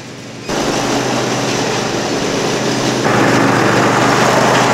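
John Deere ride-on lawn mower engine running steadily, its sound jumping up suddenly about half a second in and again about three seconds in.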